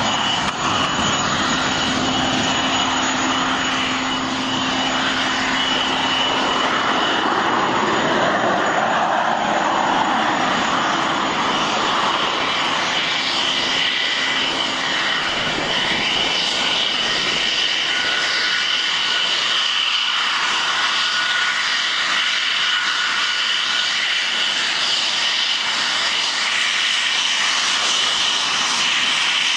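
English Electric Lightning F.6's twin Rolls-Royce Avon turbojets running steadily as the jet taxis, a loud continuous jet noise with a high, steady turbine whine.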